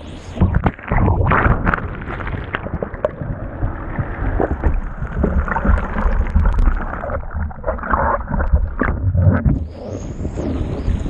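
Muffled churning and gurgling of whitewater as a breaking wave washes over a paddleboard-mounted action camera and holds it underwater, with a deep rumble and irregular surges. Near the end the camera surfaces and the brighter sound of wind and surf on the microphone returns.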